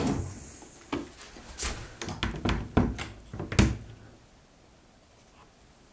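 An old kitchen drawer sliding shut, then a run of knocks and clacks as the wooden cupboard door below it is handled and pulled open, with a short high squeak about three seconds in.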